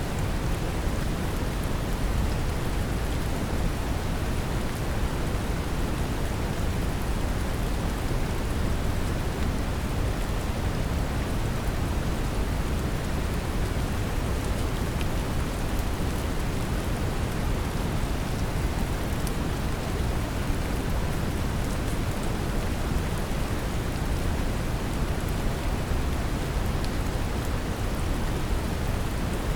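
Steady brown noise, a deep even rushing hiss, mixed with gentle rain, with faint scattered drop ticks above it.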